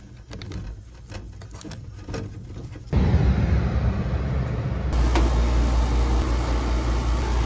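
Air conditioning system running: a few handling clicks and rustles at first, then about three seconds in a loud, steady mechanical rushing noise sets in and holds, from the air handler and the rooftop condensing unit.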